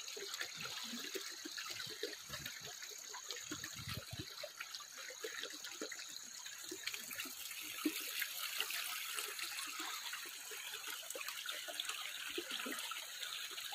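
Shallow stream flowing and gurgling, with small irregular splashes from a person working bent over in the water.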